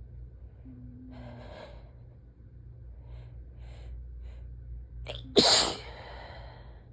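A person sneezes once, loudly, about five and a half seconds in, after a few short breathy inhales leading up to it.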